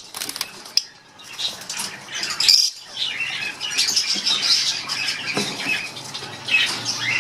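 Lovebirds chirping and squawking in a cage, mixed with clicks and rattles as a wooden nest box is fitted onto the wire cage. The knocking is busiest in the first seconds, and the high chirping thickens after about three seconds.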